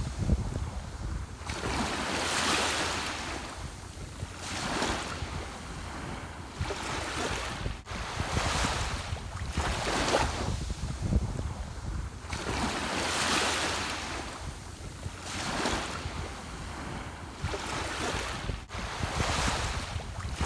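Ocean surf: waves breaking and washing up, one swell every two to three seconds, over a steady low rumble.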